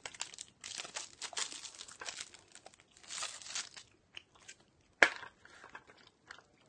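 Crinkly crunching and rustling for the first few seconds, then a single sharp pop about five seconds in as a wide plastic bubble-tea straw is punched through the sealed film lid of a Gong Cha milk tea cup.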